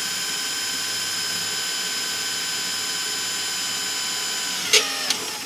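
Electric drill running at a steady whine while drilling 3 mm rivet holes through a steel backing plate. The drill stops about four and a half seconds in, followed by a few sharp clicks.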